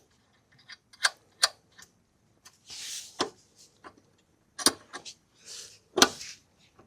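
Wrench clicking and tapping against the motorcycle's rear axle and chain-adjuster bolts as they are tightened: a handful of separate sharp metallic clicks at uneven intervals, with a few soft rustles between them.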